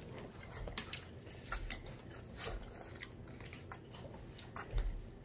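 A child slurping and chewing thick, chewy udon noodles. It comes as a string of irregular wet smacks and slurps, with one sharp click a little under a second in.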